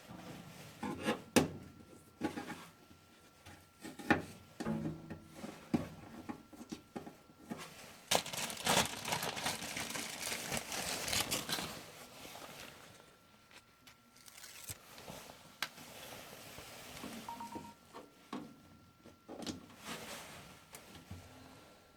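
Hands fitting a new gasket to a furnace's inducer mounting: scattered clicks and knocks, with a stretch of rustling and rubbing about eight to twelve seconds in.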